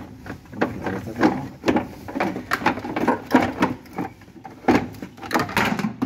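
Plastic parts of a washing machine being handled as the cover over its pressure switch is taken off: an irregular run of knocks, clicks and scrapes.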